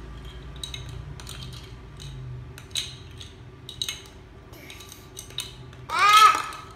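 Plastic kitchen tongs clacking and Lego Duplo bricks clicking against each other and against plastic bowls, in scattered separate clicks. About six seconds in, a toddler lets out one short, loud angry cry that rises and falls in pitch.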